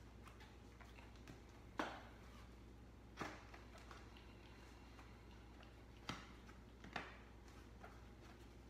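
Wide bicycle tire being pushed onto its rim by hand: four short, sharp snaps of the rubber and bead against the rim, the loudest about two seconds in, with fainter clicks between.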